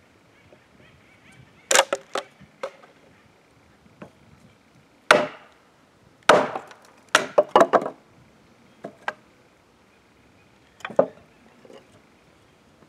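Wooden baton knocking on the spine of a Dragonfly Arms Kephart knife, batoning the blade down through a willow stick to split it: a run of sharp knocks in irregular clusters, the busiest stretch a few quick strikes about six to eight seconds in.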